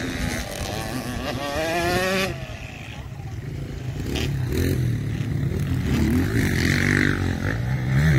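Dirt bike engines: one revs up in rising pitch and cuts off abruptly about two seconds in, then engines run at lower, steadier revs that pick up again near the end.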